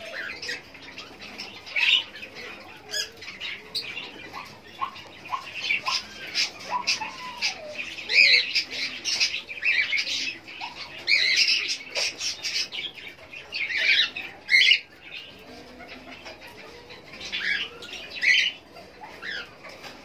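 Fischer's lovebirds chattering in shrill, high squawks and chirps that come in irregular bursts, with a few softer, lower calls in the first seconds.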